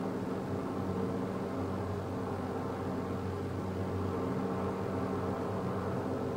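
A steady engine drone, even and unchanging, over a faint wash of noise.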